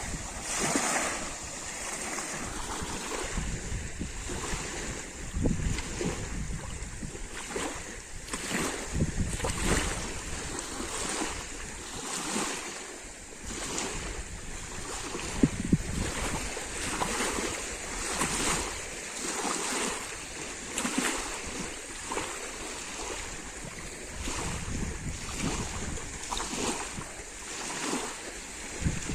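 Lake water splashing and lapping at the shore in irregular washes, roughly one a second, with wind rumbling on the microphone. Two sharp taps stand out about halfway through.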